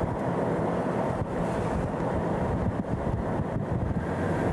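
Strong wind buffeting the camcorder's microphone: a steady, gusty low rush.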